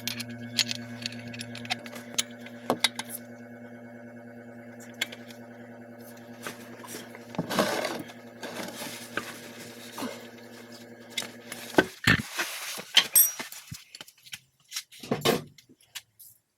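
A steady, even hum that starts abruptly and cuts off after about twelve seconds, followed by a few sharp metallic clicks and clinks.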